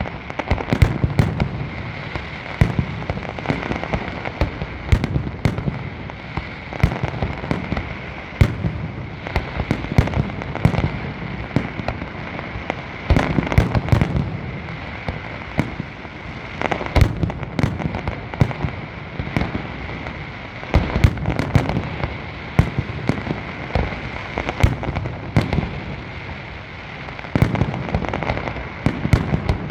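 Large fireworks display: a continuous barrage of sharp bangs, several a second, over a steady rumble and crackle, with louder volleys now and then.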